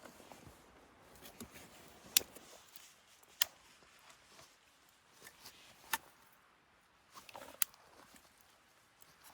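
Wood campfire crackling, with a few sharp pops one to two and a half seconds apart over a faint hiss.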